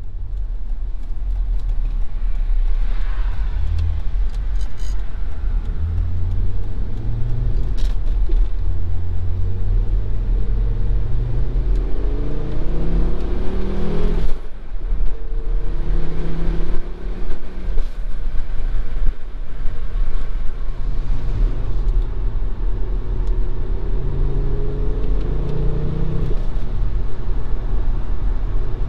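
Volvo S60R's turbocharged five-cylinder engine heard from inside the cabin, pulling with its pitch climbing steadily, then dropping sharply at gear changes about halfway through and again near the end before climbing again. A steady low rumble lies underneath.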